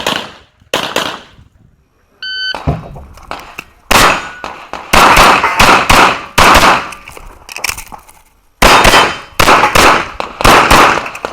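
Strings of pistol shots fired in rapid pairs and groups, with short pauses between the groups. About two seconds in, a brief metallic ring of the kind a hit steel target gives.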